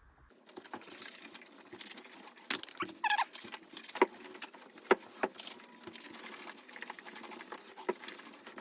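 Irregular rustling and sharp clicks, with a brief squeak about three seconds in.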